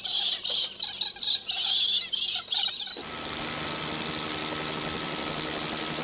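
Birds chirping and squawking in short, irregular calls for about three seconds. Then, from about halfway in, the steady drone of a small helicopter's engine and rotor in flight.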